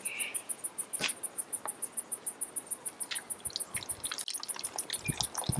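An insect chirping in a steady, high-pitched pulse of about eight chirps a second, with a few light clicks and knocks, a cluster of them near the end.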